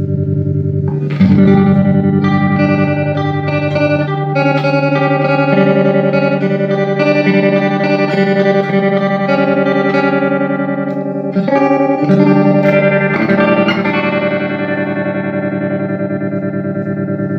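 Electric guitar played through a Fender '65 Deluxe Reverb Reissue tube amp, letting chords ring with new chords struck about a second in and again about twelve seconds in. The amp is being sound-tested with fresh power tubes and a new bias setting.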